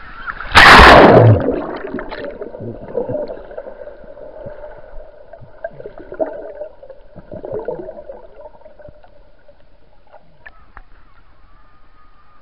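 A loud splash as the camera plunges into the sea, then muffled underwater sound: irregular gurgling and bubbling over a steady hum, quieter after about eight seconds.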